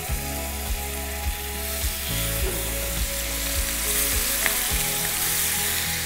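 Marinated chicken drumsticks sizzling steadily as they are laid into hot oil and ghee in a frying pan, with soft background music underneath.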